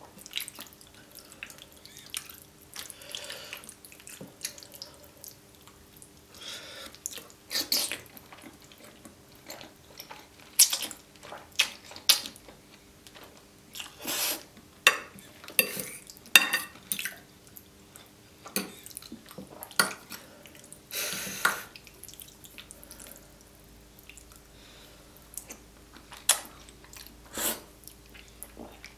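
Close-miked wet mouth sounds of eating creamy carbonara fettuccine: irregular sticky smacks and chewing, with noodles slurped up, one longer slurp lasting about a second.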